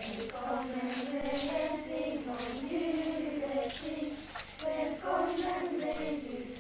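A children's choir, led by a Lucia with a candle crown, singing a Swedish Lucia song together.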